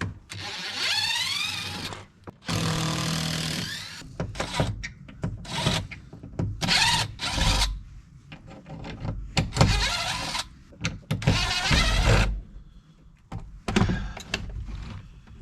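Power drill running in repeated bursts of a second or two, the first one rising in pitch as it speeds up.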